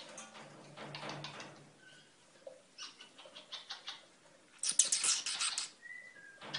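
Golden conures making runs of rapid dry clicks and scratches on their perch, in several bursts with the loudest about five seconds in, along with a couple of short, faint peeps.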